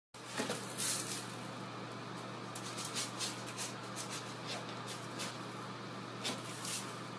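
A cat scratching and digging in litter in a plastic litter box: irregular short scraping strokes, some in quick runs, over a steady low hum.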